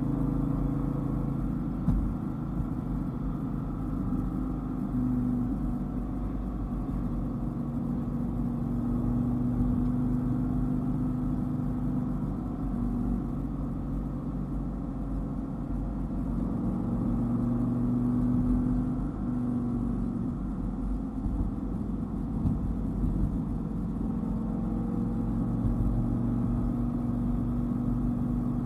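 Dodge Viper GTS's V10 engine running as the car drives along, a steady engine note that rises and falls a little with engine speed.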